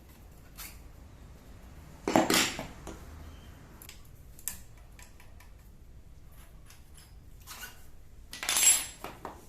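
Small metal tools and parts clinking and clattering as they are handled and set down, with scattered light clicks and two louder clatters, about two seconds in and near the end.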